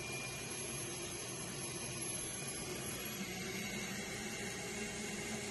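Vacuum cleaner running steadily with a faint whine, pulling suction on an AC condensate drain line through a hose adapter.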